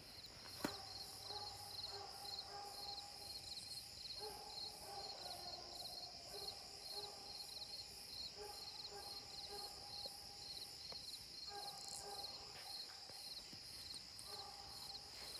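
Night crickets chirping in a steady pulsing rhythm over a high, even insect drone, with the faint, drawn-out bawl of a distant coonhound coming through in stretches, the dog working a track and treeing a raccoon.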